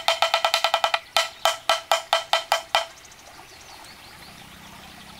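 Bamboo tube bell struck with a small wooden stick, giving a hollow, pitched knock that rings briefly. A quick run of about ten strikes is followed by about eight slower, evenly spaced ones, and the tapping stops about three seconds in.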